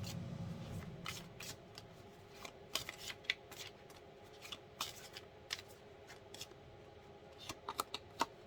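Tarot cards being shuffled and handled: a scatter of light card snaps and slides, thickest about three seconds in and again near the end.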